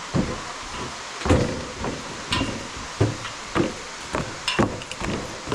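Footsteps at a steady walking pace, a thud about every half second, over a steady hiss.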